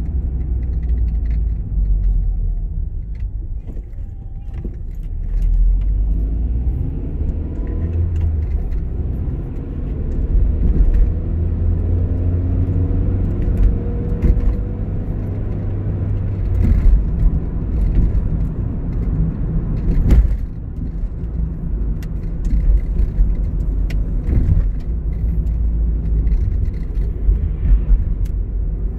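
Car driving, heard from inside the cabin: a steady low engine-and-tyre rumble on a wet road. The engine note rises about six seconds in, and light clicks and rattles come and go throughout.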